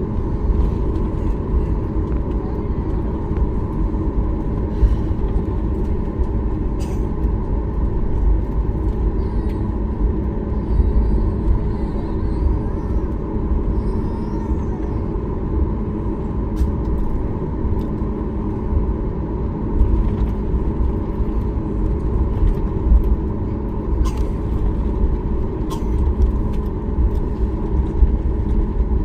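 Steady cabin noise inside a Boeing 737 MAX 8 with its CFM LEAP-1B engines running: a dense low rumble with a constant hum, and a few light ticks or rattles.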